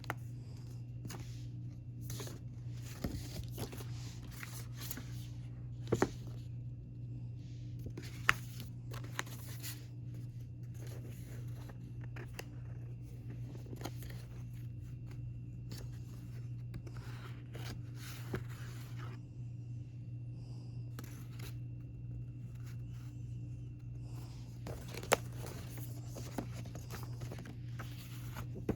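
Rustling, scraping and tapping of a K-pop album's paper and plastic packaging and contents being handled, with scattered sharper taps, over a steady low hum.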